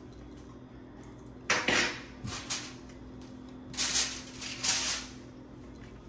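Metal baking tin clattering and scraping against the cooktop and utensils as it is handled, in two bursts of sharp knocks about two seconds apart.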